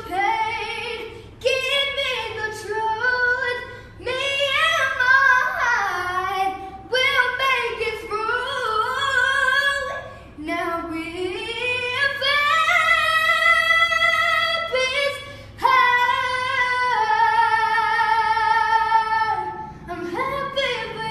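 A young boy singing a song solo in a high voice, in phrases broken by short breaths, holding long sustained notes in the second half.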